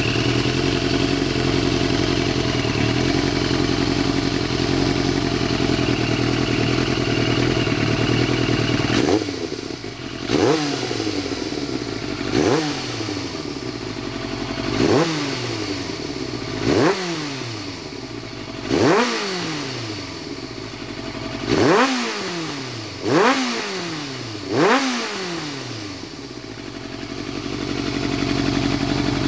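Kawasaki ZXR750 H1 inline-four motorcycle engine, freshly rebuilt with new pistons and a ported head, idling steadily, then blipped sharply about eight times from around nine seconds in, each rev climbing fast and dropping back slowly, before settling to idle again near the end.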